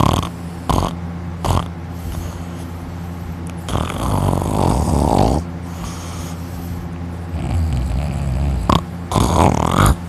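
A man snoring heavily in deep sleep, lying on his back with his mouth open: a few short snorts at first, a long loud snore about four seconds in, a softer one, a sharp snort and another loud snore near the end. A steady low hum runs underneath.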